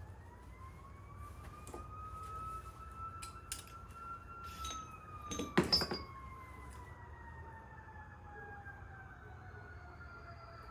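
A faint siren wailing once: its pitch rises slowly for about four seconds, then falls steadily for the rest of the time. A few knocks and a short clatter come about halfway through, the loudest sound in the stretch.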